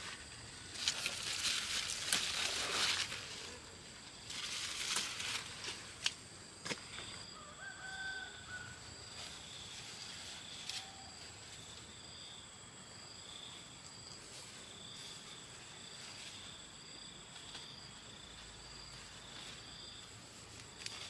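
A rooster crows once about eight seconds in, with a shorter call a few seconds later. Earlier, two louder bursts of rustling noise take up the first six seconds, and a steady high-pitched tone pulses about once a second throughout.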